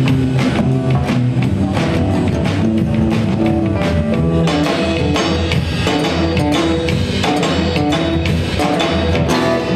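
Live hip hop band playing an instrumental stretch at the end of a song, with the drum kit keeping a steady beat over sustained bass notes.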